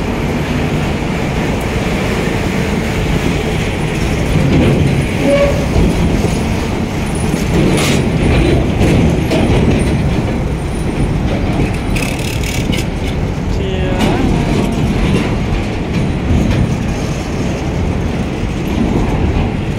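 Steady, loud rumble of rolling vehicle and rail noise among container-laden freight wagons, with a few brief clanks and a short wavering tone about fourteen seconds in.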